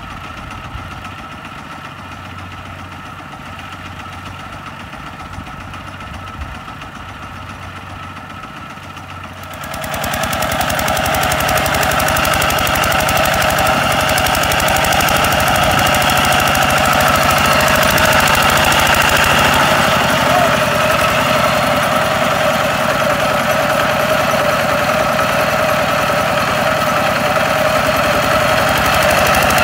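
Kubota RT140 two-wheel tractor's single-cylinder diesel engine idling, then opened up to full throttle about ten seconds in and running hard and steady as the cage wheels churn through deep mud hauling a loaded trailer of rice sacks.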